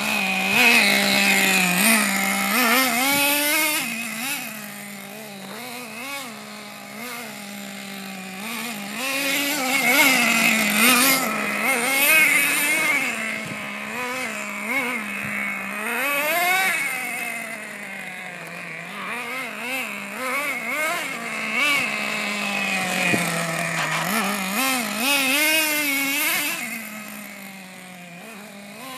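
Team Associated MGT 3.0 radio-controlled monster truck's small nitro engine revving up and down over and over as the truck is driven around, its high whine rising and falling in pitch.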